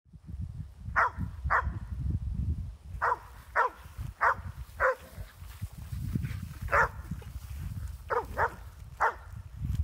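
Dog barking, about ten short barks with uneven gaps, several coming in quick pairs.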